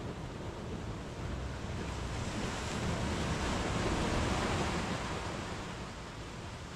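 Sea waves breaking in surf on a sandy beach and against shore rocks. One surge swells to its loudest about halfway through and then eases back as the water washes out.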